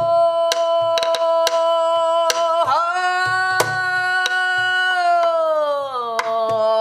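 A woman's pansori voice holding one long sung note that slides down to a lower pitch near the end, over a buk barrel drum struck with a stick in a sparse, uneven rhythm, about a dozen strokes.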